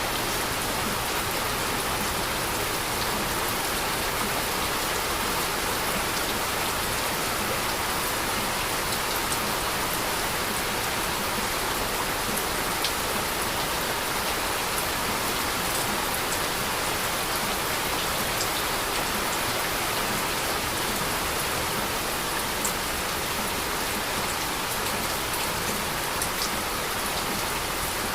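Steady heavy rain falling on a surface, a dense even hiss with scattered sharper drop ticks.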